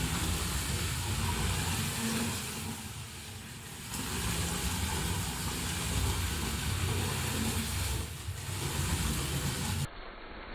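LEGO RC drift car's electric L motors and plastic gear train running hard under throttle. The sound eases off twice, then cuts abruptly to quieter background near the end.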